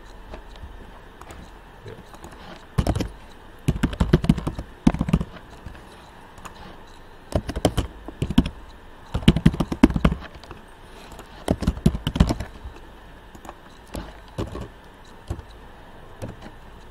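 Typing on a computer keyboard: several short bursts of rapid keystrokes separated by brief pauses.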